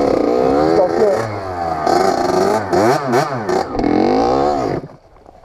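Kawasaki KX80 single-cylinder two-stroke dirt bike engine revving up and down over and over as the bike struggles in deep snow, then cutting out abruptly near the end.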